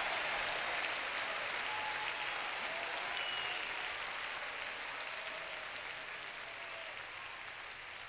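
Large audience applauding, the clapping slowly dying away.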